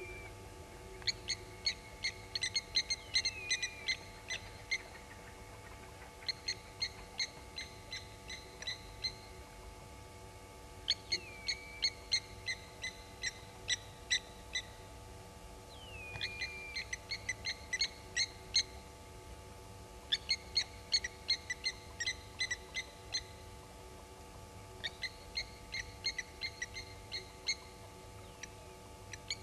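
Blacksmith lapwings giving their metallic 'tink-tink' alarm calls in rapid bouts of sharp clinking notes, again and again with short pauses, mobbing an African harrier hawk. A few short downward-sliding calls are mixed in.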